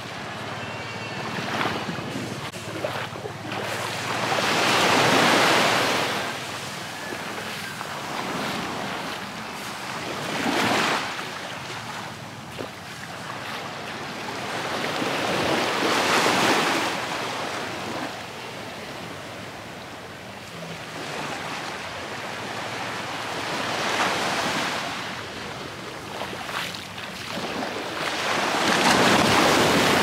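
Small waves breaking and washing up a sandy beach, the surf swelling and fading every five to eight seconds.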